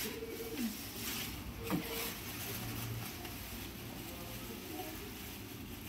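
Clear plastic wrapping film rustling and crinkling as it is handled and pulled back off a kitchen hood, with a couple of sharper crackles early on, over a low steady background hum.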